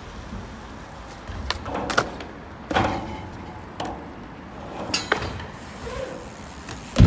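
Bike wheels and frame knocking on a skatepark ramp: a handful of sharp clacks and taps spread through, then a heavy thud near the end as the bike comes down on the ramp.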